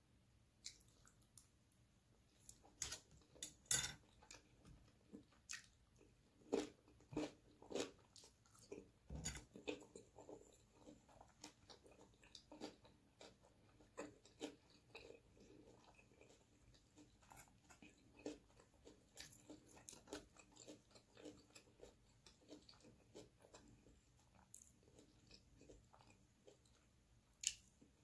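Close-miked chewing and mouth sounds of someone eating spoonfuls of rice in sauce, a soft, irregular string of short clicks and smacks, the loudest about four seconds in and near the end.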